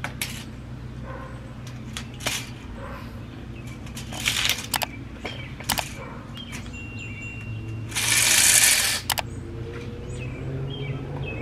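Handling a metal tape measure and a marker on a concrete floor: scattered clicks and taps, with a harsh rasping noise about a second long around eight seconds in. Birds chirp faintly near the end.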